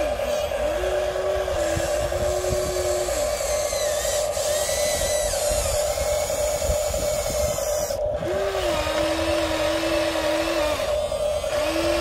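Huina 1593 RC excavator's small electric motors whining under a steady drone. A second motor tone starts, holds and dies away three times as the boom and bucket move through the dirt.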